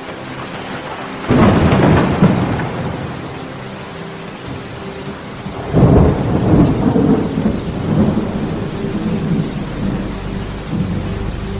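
Thunderstorm: steady rain with two loud thunderclaps, about a second in and again near the middle, each rumbling on for a few seconds.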